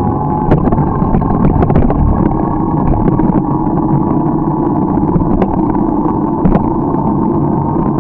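Steady rumble of a moving bicycle ride on a road, with a handful of sharp knocks or rattles: one about half a second in, a short cluster around two seconds in, and two more later.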